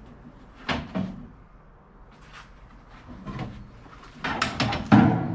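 Lengths of steel bar clanking and knocking against each other as they are sorted through. A few separate knocks, then a quick run of clanks near the end.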